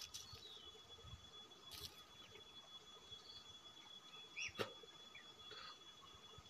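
Faint outdoor ambience: a thin steady high tone like an insect's drone, short high chirps about every two seconds, and a couple of soft clicks.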